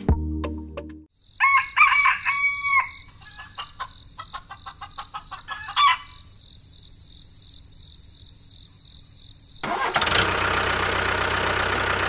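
Rooster crowing once, followed by birds chirping for several seconds. Near the end a motor starts up suddenly and keeps running steadily.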